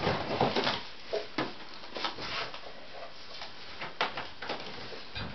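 Rummaging through and handling craft supplies: scattered rustles, light knocks and clicks at an uneven pace.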